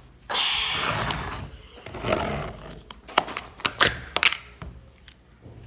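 Slime and its small plastic tub being handled: a rustling, squishing noise, then a quick run of sharp clicks and pops.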